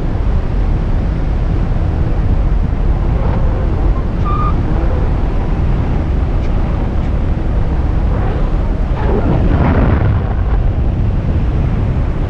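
Wind rushing steadily over the microphone of a paraglider pilot's camera in flight, a loud low buffeting that swells slightly about nine seconds in.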